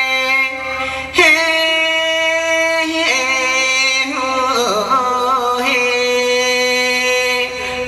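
A singer holding long, drawn-out notes over backing music, changing pitch a few times and holding the last note for about three seconds.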